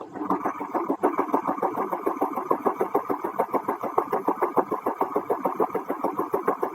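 A rapid, even mechanical rattling, about ten beats a second, that starts just after a sharp click and stops suddenly.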